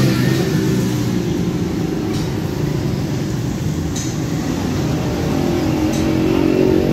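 Steady roadside traffic noise, with a vehicle engine running close by.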